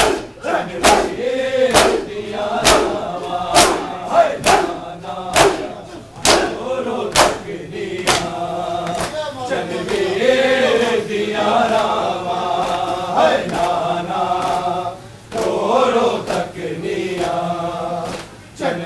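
Group of men chanting an Urdu noha in unison while beating their chests in matam, loud hand slaps on the chest falling together about once a second. About eight seconds in, the slaps stop and the chant goes on alone.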